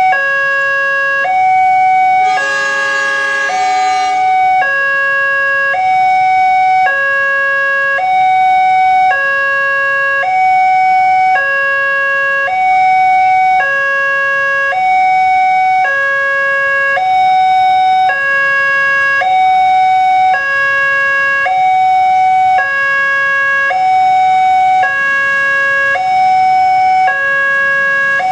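Electronic warning alarm of an Indonesian railway level crossing, sounding from the loudspeaker on the crossing pole. It plays a loud two-tone signal, high then low, each tone held about a second and repeating without a break, which warns that the barriers are down and a train is coming. About two seconds in, a second, richer pitched sound joins it for about two seconds.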